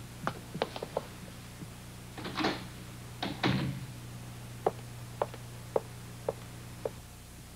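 Quick footsteps on wooden stairs, then a door opening and closing with a thud, then five slow, evenly spaced footsteps across a wooden floor.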